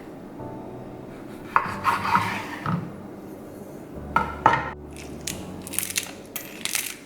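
Kitchen utensils and dishes knocking and clinking during food preparation: a couple of short clatters, then a run of quick clicks near the end.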